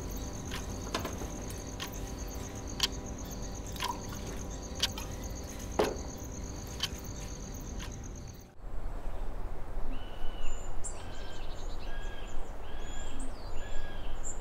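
Crickets trilling, a steady pulsing high trill, with scattered light clicks about once a second. After a sudden cut about eight and a half seconds in, birds chirp, a short call repeated about every second.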